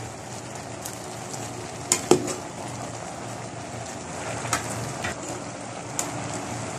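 Shrimp, bean sprouts and vegetables sizzling in an aluminium pot, with a metal ladle knocking against the pot as they are stirred: two sharp clinks about two seconds in, and a few lighter ones later.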